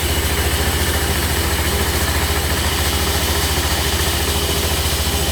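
Sawmill engine running steadily with a fast, even low throb.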